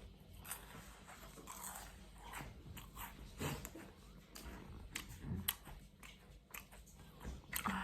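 Close-up mouth sounds of someone eating: biting and chewing, with irregular crisp crunching clicks.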